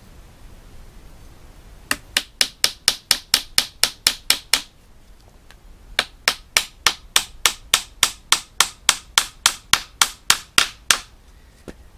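Small hammer driving small nails into a wooden screen frame with quick, light taps, about five a second: one run of taps about two seconds in, then a short pause and a second, longer run.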